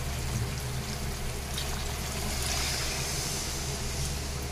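Water poured from a steel vessel into a kadai of thick mutton curry masala, a steady splashing trickle that grows fuller about two and a half seconds in, over a steady low hum.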